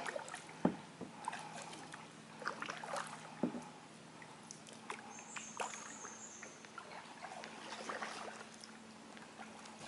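Kayak paddle strokes: the blades dip into calm water, and water trickles and drips off them between strokes. Two short dull knocks stand out, about half a second and three and a half seconds in.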